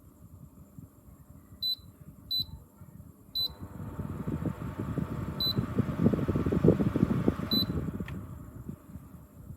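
Philips HU2716/10 humidifier's control panel beeping as its buttons are pressed: five short, high beeps spread over several seconds. From the third beep a rushing noise with crackling swells, then dies away shortly after the last beep.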